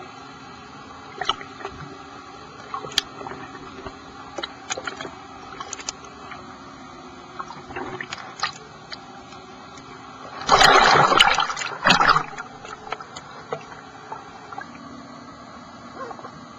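Underwater sound with scattered sharp clicks over a steady low hiss, broken about ten seconds in by a loud rush of a diver's exhaled air bubbles lasting under two seconds.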